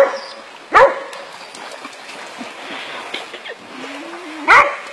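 Hunting dogs barking at a wild boar in three short, sharp barks: at the start, just under a second in, and near the end. Water splashes faintly in between.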